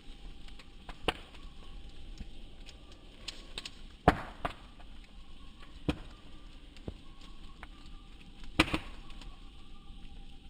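Wood bonfire crackling: a steady low hiss of burning with scattered sharp pops, the loudest a double pop about four seconds in and another just past eight seconds.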